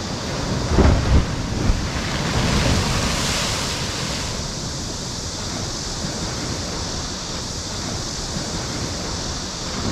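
Sea waves breaking against the shore at high tide: a few heavy crashes about a second in, then a swell of hissing spray and steady surf.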